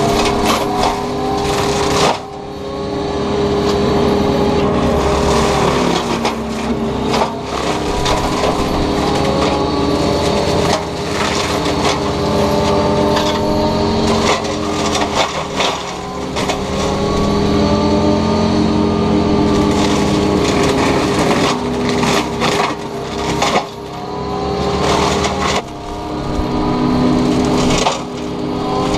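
Takeuchi TB290 excavator running an FAE mulching head, shredding brush and wood: a steady whine with frequent cracks and crunches, and the machine's pitch rising repeatedly.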